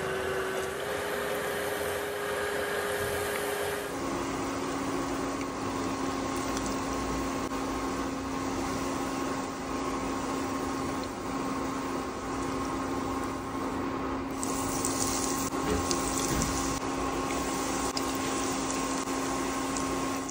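Kamote cheese rolls deep-frying in hot oil: a steady sizzle of bubbling oil, with a steady low hum underneath. The sizzle grows brighter and more vigorous in the last few seconds.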